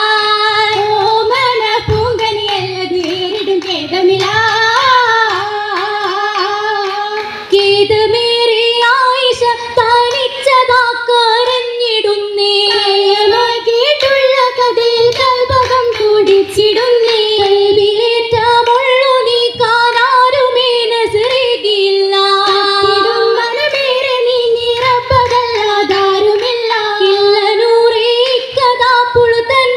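Girls singing an Oppana song, a Malayalam Mappila wedding song, in unison through a stage PA. The melody runs continuously, one phrase after another.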